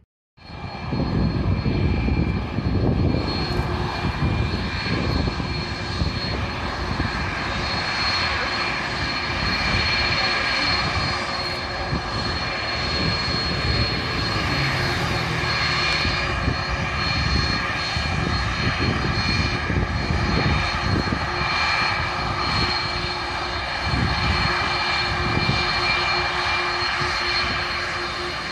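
Jet airliner engines running with a loud steady roar and several high whining tones that hold their pitch throughout. Gusts of strong wind buffet the microphone underneath.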